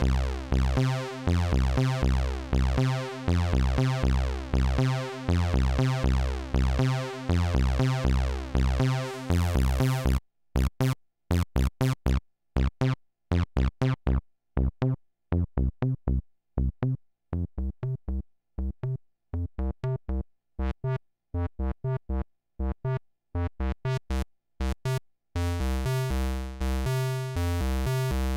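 Fred's Lab Zekit analog-digital hybrid synthesizer playing a fast sequence of low notes while its envelope is being adjusted. About ten seconds in the notes turn short and clipped with gaps between them, and near the end they ring on again.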